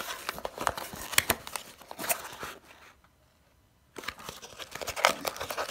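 A small cardboard product box being opened and handled, with rustling, scraping and light clicks of card and paper. It comes in two bouts with a pause of about a second between them.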